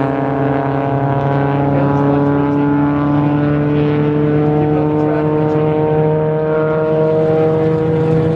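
Race car engines running hard on the circuit, several steady engine notes held together with a pitch that slowly rises.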